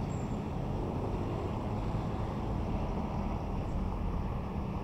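Steady low rumble of heavy construction machinery, with wind noise on the microphone.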